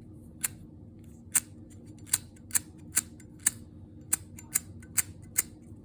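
Zippo lighter giving a run of about ten sharp metallic clicks, roughly two a second, unevenly spaced.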